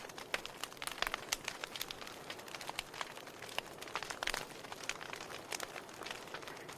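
Wood fire burning in a fireplace: irregular sharp crackles and pops, several every second, over a soft steady hiss.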